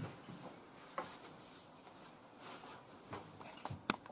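A few faint knocks and clicks of things being handled on a workbench over quiet room tone: one about a second in and a sharper pair near the end.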